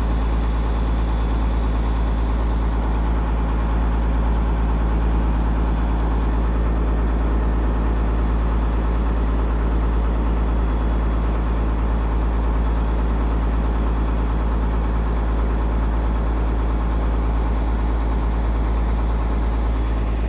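Boat engine running steadily, a constant low drone heard from on board.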